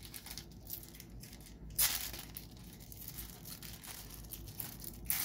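A trading-card pack wrapper being torn open and crinkled by hand, with a sharp rip about two seconds in and another near the end.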